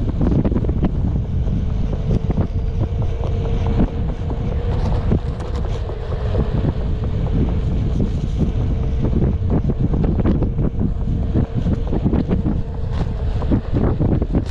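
Wind buffeting the microphone with a heavy, steady rumble while riding a Onewheel electric board, with frequent short knocks and a faint steady hum from the board's hub motor underneath.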